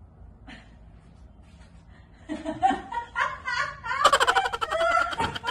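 A woman laughing, starting about two seconds in and growing louder and faster in the last second and a half.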